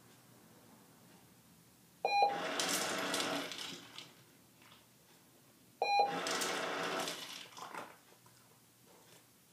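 Automatic pet treat dispenser sounding twice, about four seconds apart: each time a short beep, then a second or so of whirring rattle as it releases food, which then fades.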